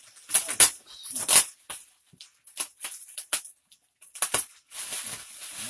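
Packing material rustling and crinkling in irregular bursts as it is handled and cut apart.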